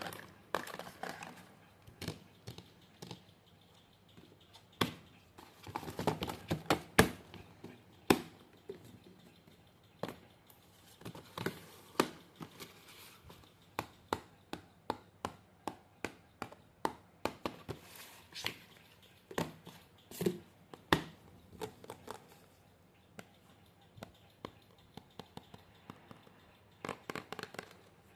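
Hands handling paper craft pieces: many sharp taps and clicks, at times several a second, with short bursts of paper rustling.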